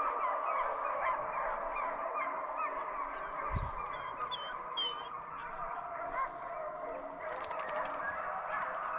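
A pack of deer hounds baying while running a deer, a steady chorus of many overlapping short calls.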